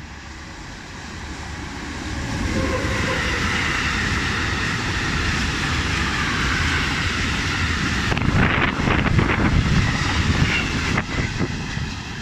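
Freight train of tank wagons, hauled by an electric locomotive, passing close by: the rumble builds over the first two seconds, then stays loud and steady. From about eight seconds in, a run of sharp wheel clatter joins the rolling noise.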